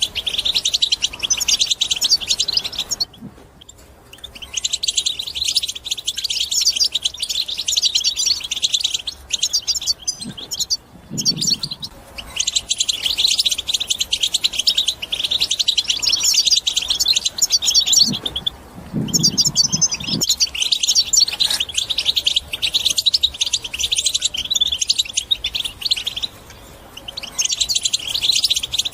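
European goldfinch singing a fast, chattering twitter in long phrases broken by brief pauses.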